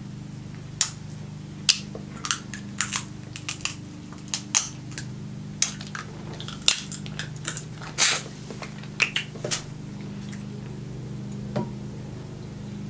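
Snow crab leg shells being cracked and snapped apart by hand: a quick, irregular run of sharp cracks that stops about ten seconds in. A steady low hum sits underneath.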